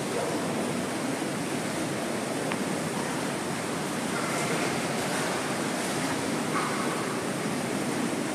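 Steady rushing of churning water from a hot tub's running jets.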